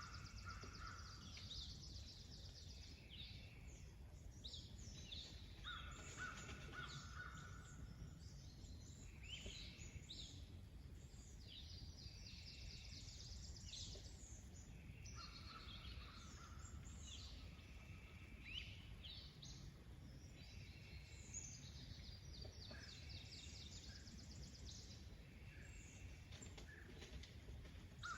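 Several wild birds calling: many short chirps and trills, with a lower held call that comes back every eight or nine seconds, over a faint steady low rumble.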